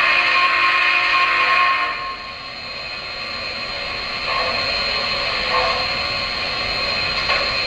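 O-gauge model steam locomotive's onboard sound system hissing steam while it stands at the station, louder for the first two seconds and then steady, with a faint high whine running through it.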